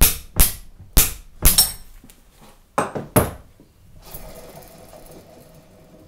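Socket wrench on the nut of an MGB front stub axle as the hub nut is tightened and torqued: about seven sharp metallic clicks, four evenly spaced at the start and three close together about three seconds in. After that the freshly shimmed front hub spins freely on its taper roller bearings with a faint steady whirr.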